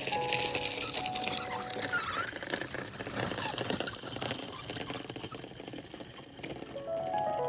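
Piano music thins out to a few held notes and comes back near the end; in between, a run of light, irregular clicks and patter, with one sharper click about four seconds in.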